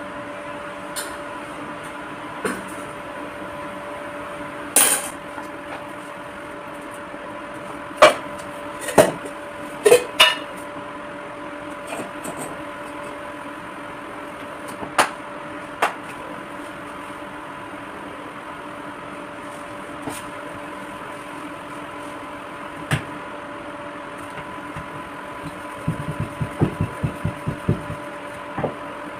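Kitchen work while making rotis: scattered clinks and knocks of utensils on the counter, then near the end a quick run of soft pats, hands slapping a ball of dough flat between the palms. A steady electric appliance hum runs underneath.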